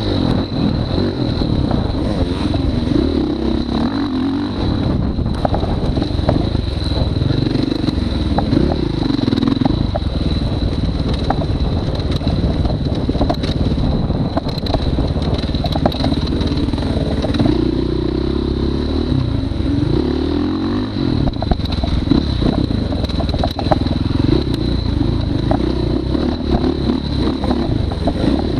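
Dirt bike engine being ridden hard, revving up and down again and again through the throttle and gear changes, with scattered light clatter.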